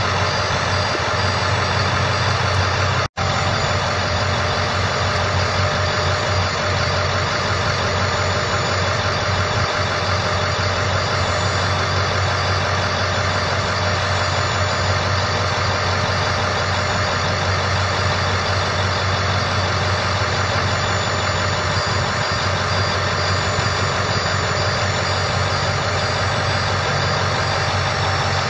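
International T444E 7.3-litre V8 diesel idling steadily. The sound cuts out for an instant about three seconds in.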